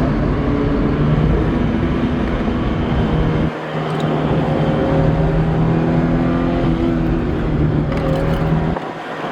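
Car engine pulling at steady high revs while driven on a track, heard from inside the car, with a sharp lift off the throttle about three and a half seconds in and another near the end.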